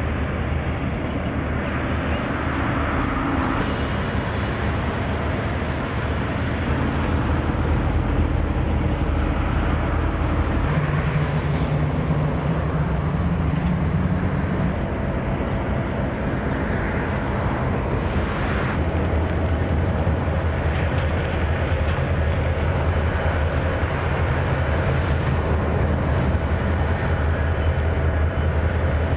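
Diesel-electric locomotives idling in a shop yard: a steady low engine rumble. Near the middle a louder, slightly higher engine note rises above it for about four seconds, and there is a single clank a little after that.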